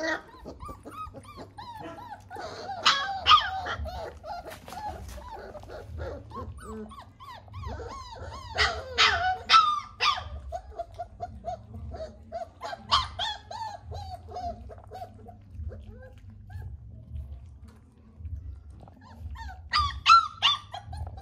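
Puppies whimpering and yipping in short, gliding cries, in several bursts a few seconds apart, over a low steady rumble.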